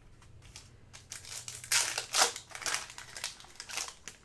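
Crinkling and crumpling of a foil trading-card pack wrapper being opened and handled, starting about a second in and loudest about two seconds in.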